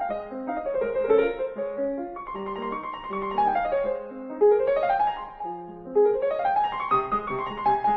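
Background piano music, a busy flow of quick notes with two rising runs in the second half.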